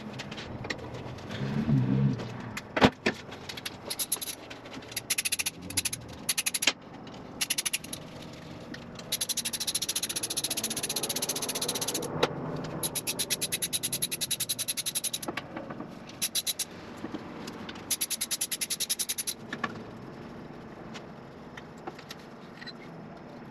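Ratchet wrench clicking in quick runs as bolts are worked loose on an LS V8 cylinder head, with scattered knocks of metal tools on the engine, one sharp knock about three seconds in.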